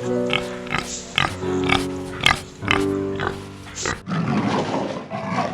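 Background music with a steady beat and held notes. About four seconds in, a rough, noisy animal call comes in over it.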